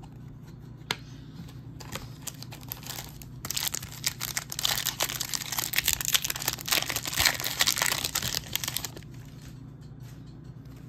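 Foil wrapper of a 2021 Donruss Optic football retail pack being torn open and crinkled: a few light clicks, then dense crackling from about three and a half seconds in that stops about nine seconds in.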